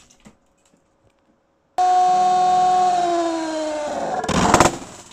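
After a short quiet, a 24 V DC drill motor spinning a CD starts up with a loud whine whose pitch slowly falls. About four and a half seconds in it ends in a loud crashing burst: the motor is shorted to brake it, and the sudden stop shatters the CD inside the plastic box.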